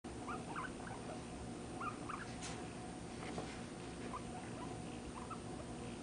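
Guinea pig making short squeaks again and again while being stroked, which the owner takes as a sign that it is happy.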